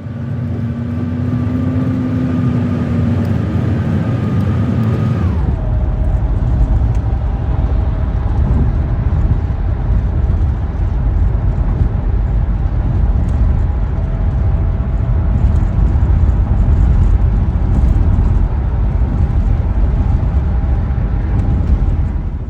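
Car driving: engine and road noise with a steady engine note that drops in pitch about five seconds in, then a heavy, even low rumble of the moving car.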